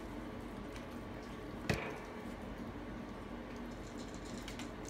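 A Maltese puppy eating dry kibble from a bowl: small wet chewing and crunching sounds over a low steady hum, with one sharp click about a second and a half in.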